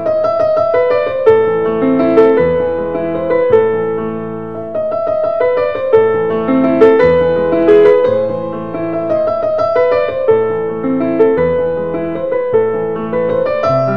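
Background music: a gentle piano piece playing calmly, notes struck about once a second.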